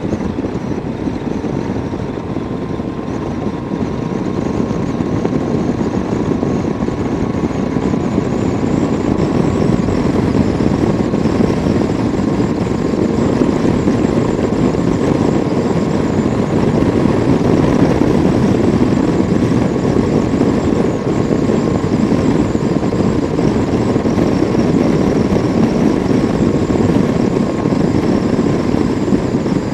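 Motorcycle at road speed, heard from the rider's own bike: steady wind rush on the microphone mixed with the engine running, with a faint steady whine, growing a little louder a few seconds in.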